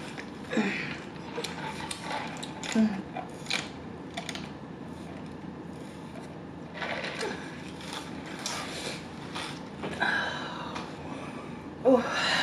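Close-miked handling sounds: a paper napkin rustling and small clicks and knocks, with sips through a straw from a paper fast-food cup.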